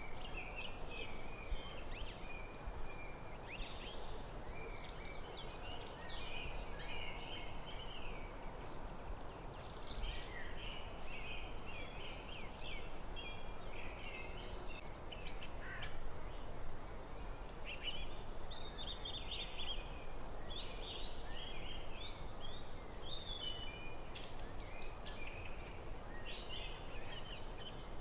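Forest birdsong: several small birds chirping and twittering without pause, over a steady low background noise.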